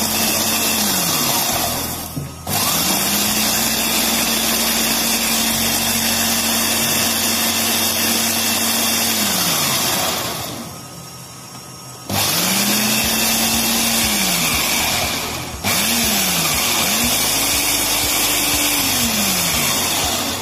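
Small electric food processor chopping whole red chillies, fried garlic and salt, run in pulses: the motor whirrs up to speed and winds down several times, with a pause of about two seconds near the middle. It is being pulsed to keep the chop coarse.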